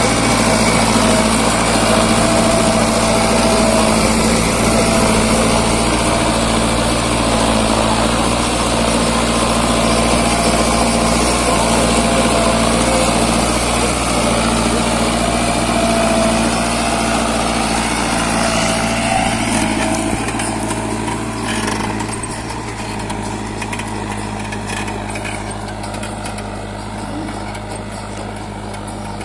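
Mahindra Arjun Novo 605 DI tractor's diesel engine running steadily under load as it pulls a plough through the soil. It becomes somewhat quieter over the last several seconds.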